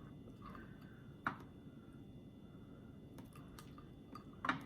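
Quiet eating sounds: soft chewing and small mouth clicks, with a couple of sharper clicks about a second in and near the end.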